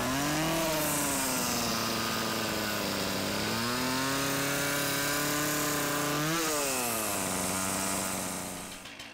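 Chainsaw engine running and revving twice, its pitch climbing and then easing off each time, before fading out near the end.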